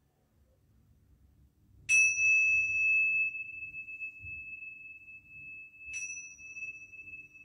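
Tingsha cymbals struck together twice, about four seconds apart. Each clash leaves one high, clear ring that hangs on for seconds, the first louder than the second.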